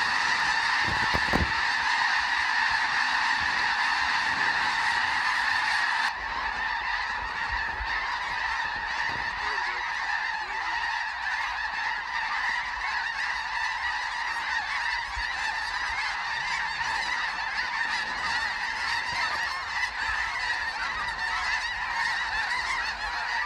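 Dense, continuous chorus of calls from a huge flock of snow geese flying overhead, thousands of birds calling at once. It drops slightly in level about six seconds in and then carries on steadily.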